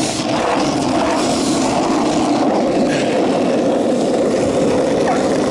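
Skateboard wheels rolling over rough asphalt: a loud, steady rumble.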